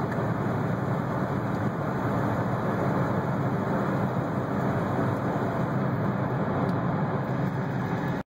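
Steady road and engine noise of a car driving at highway speed, heard from inside the car; it cuts off suddenly near the end.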